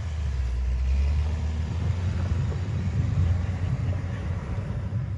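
An SUV driven hard through deep snow: engine running under load with its wheels churning the snow, heard as a steady low rumble.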